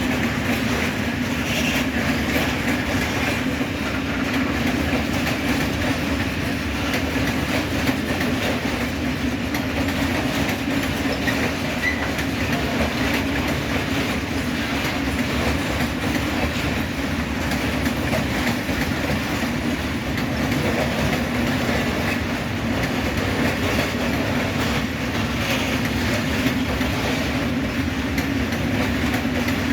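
Freight train of Eas and Fas freight wagons rolling past at a steady pace, a continuous rail rumble with the wheels clicking over the rail joints.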